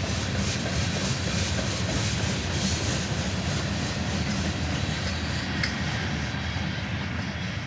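Freight train cars rolling past on the rails: a steady rumble with wheels clicking over rail joints, the clicks clearest in the first few seconds.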